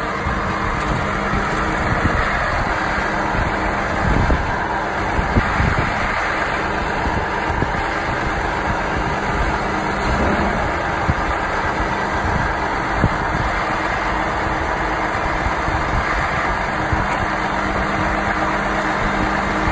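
Volvo FMX 8x4 grab lorry's diesel engine running steadily while its loader crane and clamshell grab work, with a few short clunks along the way.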